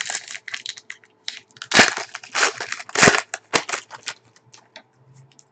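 Trading cards and their packaging being handled by hand: a run of rustles and clicks, loudest twice, about two and three seconds in.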